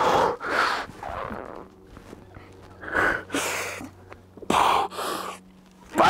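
A bouldering climber's forceful breathing under effort while pulling on small rock holds: about six short, loud breaths out, spaced unevenly with quieter gaps between.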